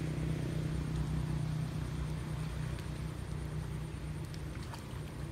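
A steady low motor hum, like an engine running, with a few faint clicks near the end.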